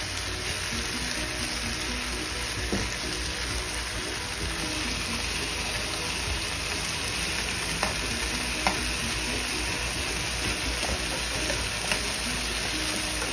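Seasoned beef oxtails sizzling as they sear in hot oil in a pan, a steady hiss, with a few sharp clicks of the utensil turning them against the pan.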